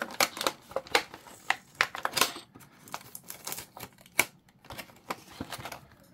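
Stiff clear plastic clamshell packaging being handled and pried open by hand: a string of irregular clicks, snaps and crinkles, busiest about two seconds in.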